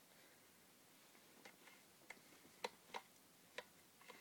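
Faint metallic clicks, about six at uneven intervals, from the trigger and sear of a No. 4 Mk 2 Lee-Enfield rifle being worked with the safety on. The sear moves but is caught on the cocking piece, so the striker does not fall.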